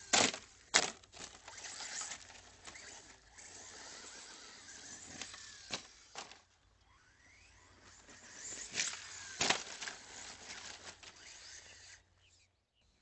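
ECX Torment RC short-course truck crashing and rolling over on loose dirt, with several sharp knocks and clatters as its body hits the ground, the two loudest about a second in and two more near nine seconds. Between the hits come gritty scraping of tyres on dirt and short rising whines from its brushless electric motor.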